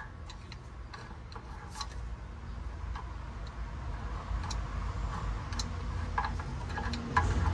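Star-wheel adjuster of a drum-in-hat parking brake clicking notch by notch as a flathead screwdriver turns it through the access hole in the rear rotor, with scattered light metallic clicks. The parking brake shoes are being set close to the drum, just short of locking up.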